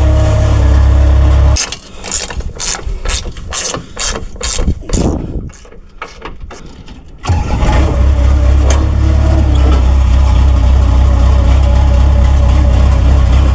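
An engine running steadily, then cutting off about a second and a half in. For some five seconds there is a string of sharp clicks and knocks, and then the engine is suddenly running again.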